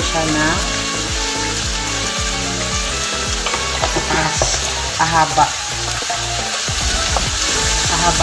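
Carrot sticks, sliced onions and tomatoes sizzling in a frying pan while a spatula stirs them around, with short scraping strokes against the pan.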